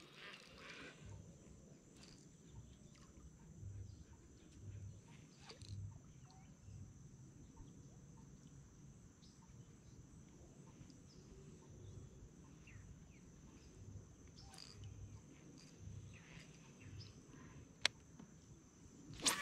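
Faint, steady high-pitched insect chirr starting about a second in, with scattered soft knocks and one sharp click near the end.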